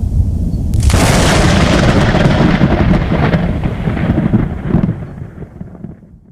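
A deep rumble, then a sharp crash about a second in that rolls on like thunder and fades out near the end.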